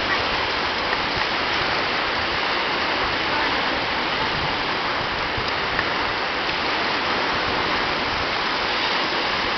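Steady rushing hiss of ocean surf, even throughout.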